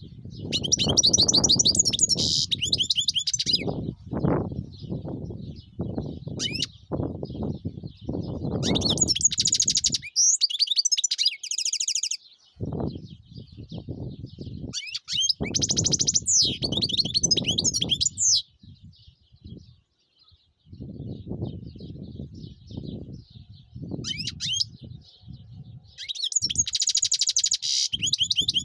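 European goldfinch singing in bursts of rapid, twittering trills, several phrases with short pauses between them. A low, gusting rumble comes and goes under the song.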